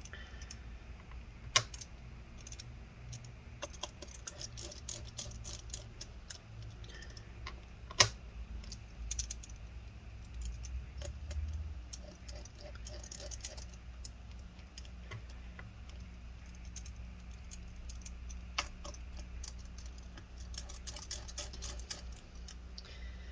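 Small screwdriver driving in the screws that hold a MacBook Air's trackpad: faint scattered ticks and clicks of metal on metal, with a few sharper clicks, the loudest about eight seconds in.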